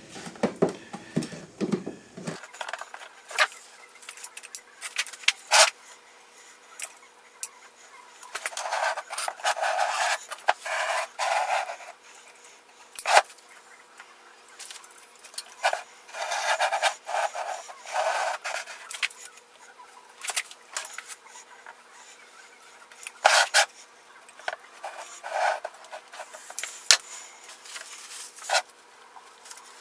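Hand-work noises at a workbench: scattered sharp clicks and stretches of rubbing and scraping as plastic solar-light caps are handled on a wooden box and a caulking gun is worked to silicone them in.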